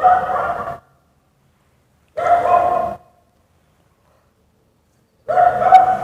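An angry Indian dog barking: three separate long barks, each just under a second, spaced two to three seconds apart with silence between.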